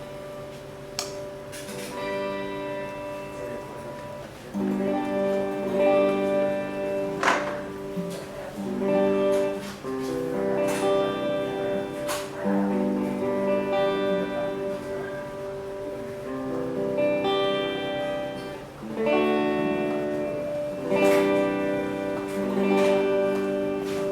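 PRS SE Custom electric guitar played on its neck pickup (85/15 S humbucker) through a Mesa Rectoverb 25 amp: a picked chord-and-melody passage, the notes ringing into each other.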